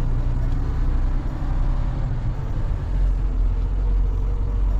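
Semi truck's diesel engine running, heard from inside the cab as the truck moves off. The low rumble grows heavier about three seconds in.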